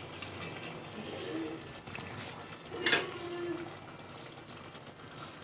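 A steel ladle stirring and pouring curry gravy back into an aluminium pot, with a soft liquid sound. Metal clinks on metal once about three seconds in, with a short ring.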